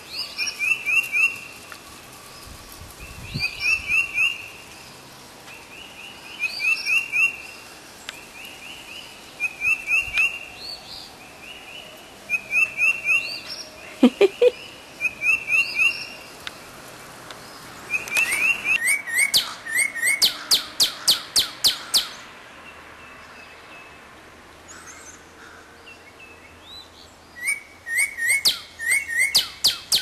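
Songbirds singing in woodland: one bird repeats a short phrase of quick high notes about every two seconds, and from about two-thirds of the way in a long run of rapid high notes joins, a few per second. A brief lower rising sound comes about halfway through.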